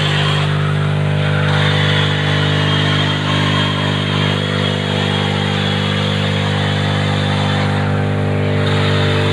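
Electric woodworking machine running steadily with a constant low hum and a higher whine and hiss while an agarwood log is fed into it. The higher hiss eases off briefly about half a second in and again near the end.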